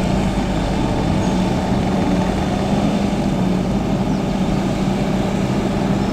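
Kubota SVL74 tracked skid steer's diesel engine running steadily at an even speed.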